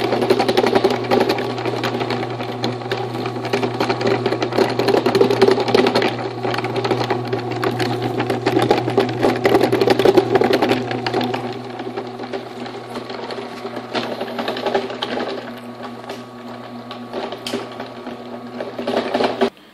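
Sand muller's homebuilt gear reduction running: a Maytag washing machine motor hums steadily while a three-tooth ball-bearing lantern gear clatters rapidly against the curved plywood rack teeth. The sound cuts off suddenly just before the end.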